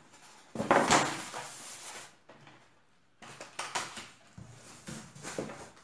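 Cardboard boxes and packing material being handled: a loud scraping rustle about a second in, then several shorter rustles and knocks.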